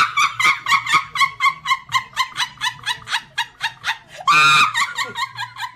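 A woman laughing hysterically in rapid, high-pitched squeaky bursts, about five a second, that slowly weaken. A louder shriek of laughter breaks out about four and a half seconds in.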